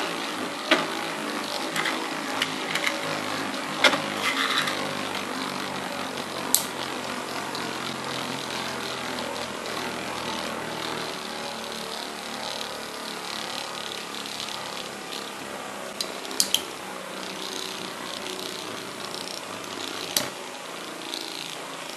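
Two metal-wheeled Beyblade spinning tops, Lightning L-Drago and Meteo L-Drago, whirring steadily on a plastic stadium floor, with sharp clacks of contact now and then: several in the first few seconds, a quick cluster about sixteen seconds in and one more near the end. The whir slowly fades as the tops lose spin.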